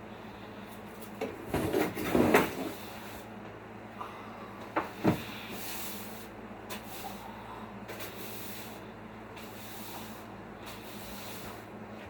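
A burst of knocks and rattles about two seconds in, then two sharp knocks a few seconds later, like objects being handled or set down. Faint swishes and a steady low hum run underneath.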